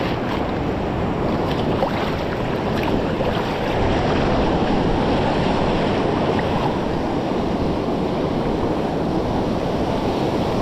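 Steady rush of water surging around rocks, with some wind noise on the microphone.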